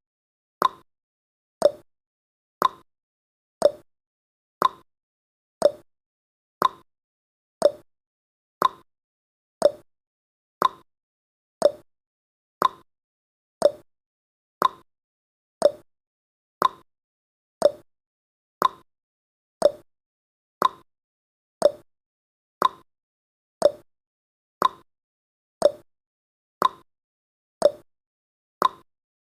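Clock-style ticking sound effect of a countdown timer: sharp ticks about once a second, alternating between a higher tick and a lower tock.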